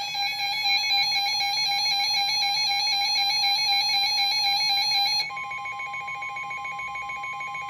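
Emergency Alert System two-tone attention signal: a loud, steady alarm for about five seconds. It then switches to a quieter single steady tone, the NOAA Weather Radio 1050 Hz warning alarm tone that precedes a warning broadcast.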